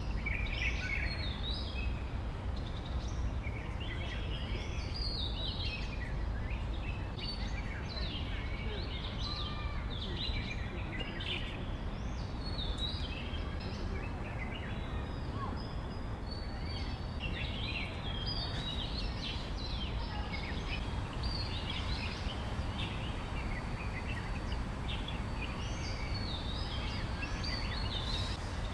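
Many birds chirping and calling in quick, irregular bursts, over a steady low background rumble.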